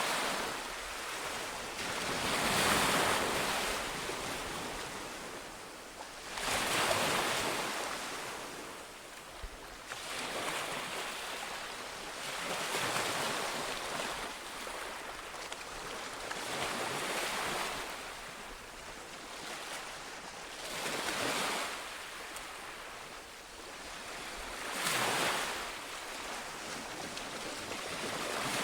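Sea waves breaking on a shore, one after another: each surges up in a rush of surf and washes back, roughly every four seconds.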